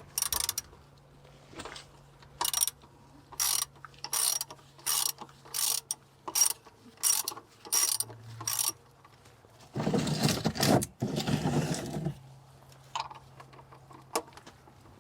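Ratchet wrench clicking in short strokes, about a dozen over the first seven seconds, then a denser rasping run of about two seconds.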